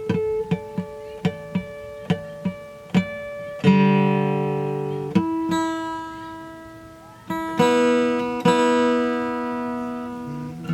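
Acoustic guitar played solo: a run of single plucked notes, two or three a second, then several strummed chords that ring out from about four seconds in.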